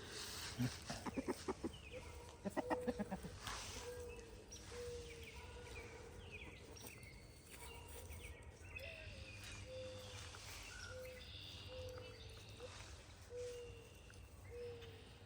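Backyard chickens clucking: a burst of louder, rapid clucks in the first few seconds, then short low clucks about once a second, with faint wild-bird chirps above.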